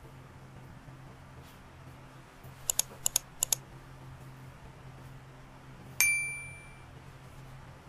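Subscribe-button sound effect: three quick double clicks of a computer mouse near the middle, then about two and a half seconds later a single bright notification-bell ding that rings out for about a second. A faint steady low hum runs underneath.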